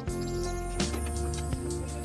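Background music: sustained held notes over a steady percussive beat.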